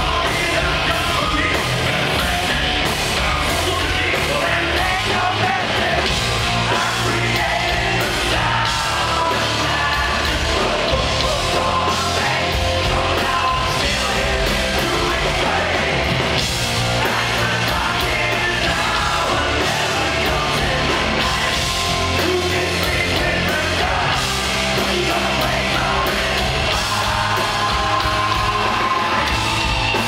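A hard rock band playing live at steady full volume, with electric guitars, bass and drums and a male singer singing over them.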